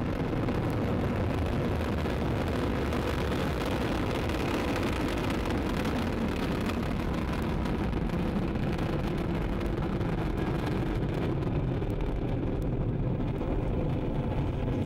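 Ariane 5 ES rocket in powered climb just after liftoff: steady, loud noise of its two solid rocket boosters and Vulcain main engine. The sound turns duller in the last few seconds as the high end fades.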